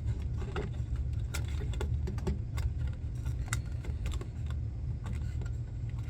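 Irregular light clicks and taps from the plastic and cardboard parts of a screen protector kit being handled, over a steady low hum.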